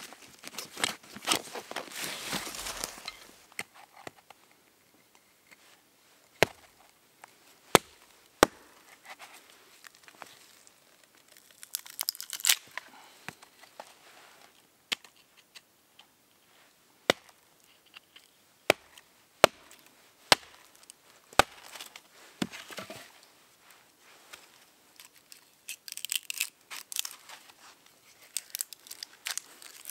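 Hatchet striking a short log held upright on snowy ground, about ten separate sharp knocks a second or more apart, with crackling and tearing twice as the wood splits apart. It opens with a rustle of gear as the hatchet is drawn.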